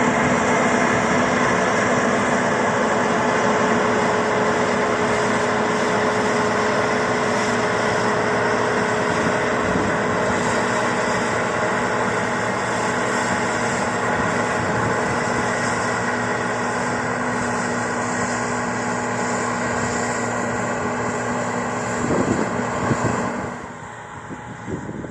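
Combine harvester running steadily under load, a continuous machine drone with a steady hum and whine. The sound falls away sharply about a second and a half before the end.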